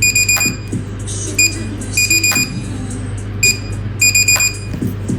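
Repeated short, high electronic beeps in quick groups, over a steady low hum.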